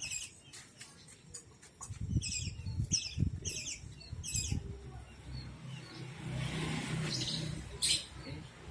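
Budgerigar giving a quick run of about five short chirps, with wingbeats underneath, then a steady rushing noise in the second half.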